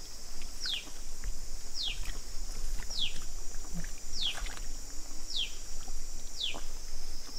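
A bird repeating a short, high, falling whistle about once a second, over a steady high-pitched insect drone.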